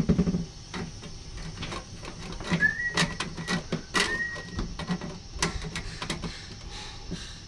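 Sheet-metal dryer vent pipe clicking, knocking and scraping as it is worked into a wall opening. About a third of the way in, and again around halfway, metal rubbing on metal gives a brief squeak.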